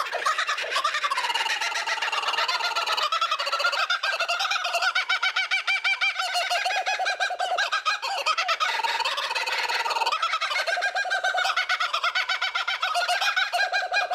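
Laughing kookaburra giving its laughing territorial call: a long, rolling run of rapid cackling hoots, with a brief dip about ten seconds in.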